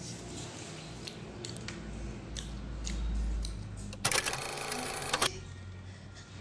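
A film-projector rattle sound effect: a dense run of rapid clicks lasting just over a second that starts and stops abruptly. It is an editing effect laid in with a film-reel style transition.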